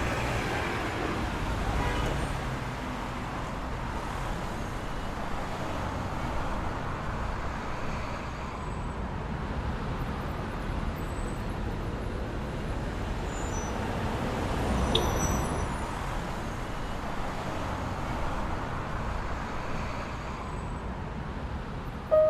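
Steady street traffic noise, swelling louder around fifteen seconds in.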